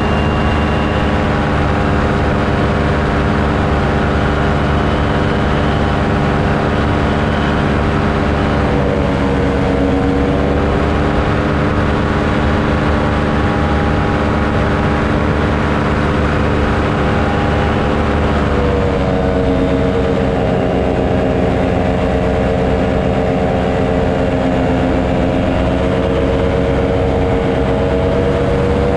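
Engine running steadily and loud. Its pitch dips briefly about nine seconds in and drops again just after eighteen seconds.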